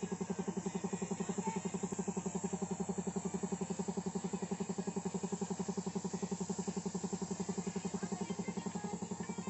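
Small piston air compressor running steadily with a rapid, even pulse, supplying air to a paint spray gun.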